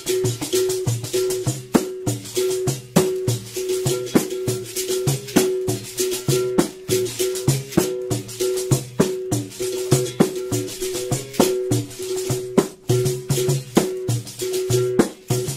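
Berimbau played in a quick, steady capoeira rhythm. The steel string is struck with a stick and switches between two notes, and the caxixi basket rattle sounds with the strokes.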